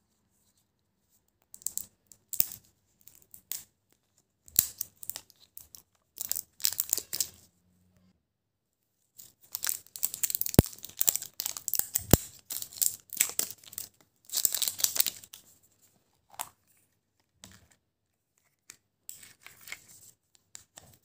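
Plastic wrapper sleeve being torn and peeled off a plastic surprise-egg capsule, crinkling in irregular bursts with two sharp clicks in the middle. Fainter rustling of paper and wrapper near the end as the capsule is opened.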